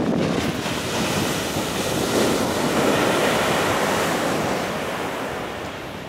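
Ocean surf on a sandy beach: a large wave breaks right at the shore and its foam washes up the sand. The noise is loud and steady at first and eases off near the end.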